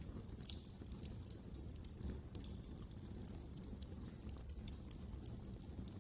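Wood fire in a fireplace crackling: irregular sharp pops and snaps from burning logs over a low steady rumble of the flames.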